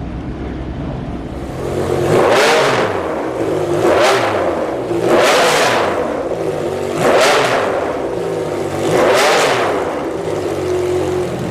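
Porsche 996 GT3 RSR racing car's flat-six engine revving, rising and falling five times about two seconds apart.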